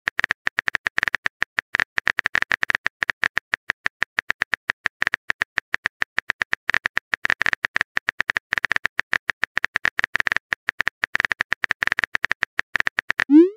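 Simulated phone-keyboard typing clicks from a texting-story app, rapid and irregular as a message is typed letter by letter. Right at the end comes a short rising swoosh as the message is sent.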